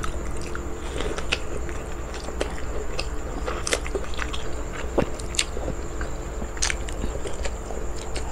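Close-up chewing of boiled banana blossom and fried rice, with scattered small mouth clicks and smacks. A faint steady high-pitched whine sits underneath.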